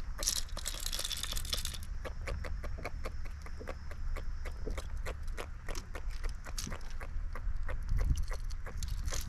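Rapid, irregular small clicks and crunches of fishing gear being handled on a kayak, with a short hiss about half a second in, over a steady low rumble.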